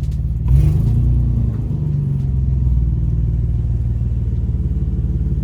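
Car engine and exhaust running with a low, evenly pulsing rumble as the car moves slowly, surging louder briefly about half a second in, then settling back.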